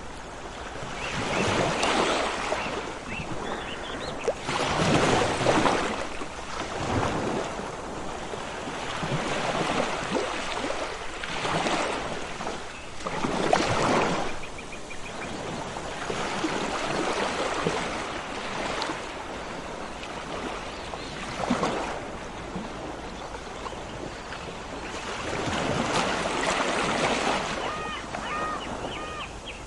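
Sea waves washing in and subsiding in slow surges every few seconds. Near the end a bird calls in a few short repeated chirps over the surf.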